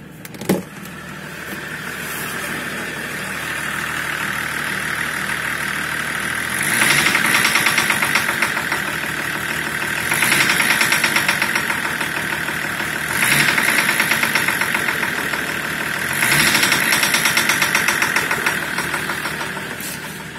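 BMW M51D25 inline-six turbodiesel idling and blipped four times, each rev lasting about three seconds with a fast, even pulsing. The engine has a knock that the owner puts down to a faulty fuel injector.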